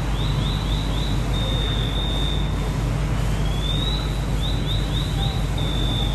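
A high-pitched electronic alarm cycling through a rising sweep, a quick run of four or five chirps, and a held steady tone, the pattern repeating about every four seconds. Underneath is a steady low rumble of running engines.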